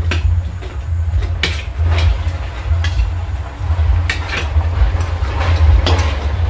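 Tractor's diesel engine running close by, a steady low chugging rumble, with a few sharp clicks over it.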